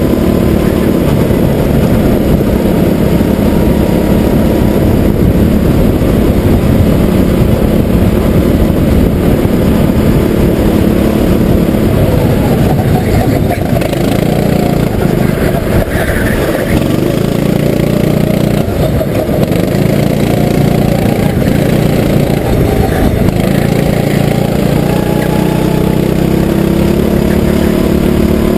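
Go-kart engine running hard under the driver, heard close from the kart's own onboard camera. Its note dips and climbs again around the middle of the stretch as the kart slows for corners and accelerates out.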